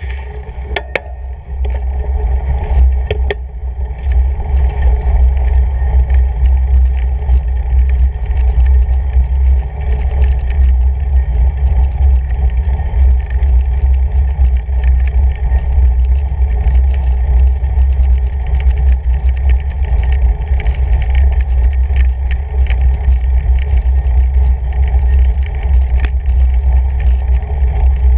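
Steady low rumble of a fat bike rolling over packed snow, picked up through a handlebar-mounted camera, with scattered small clicks and crunches.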